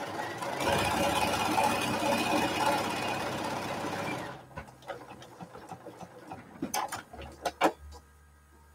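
Bernina sewing machine stitching at a steady fast run, which stops about four seconds in. A few light clicks and taps follow.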